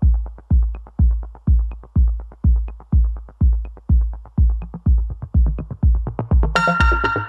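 Electronic dance music with a steady kick drum about twice a second and lighter percussion between the beats; a bright synth melody comes in near the end.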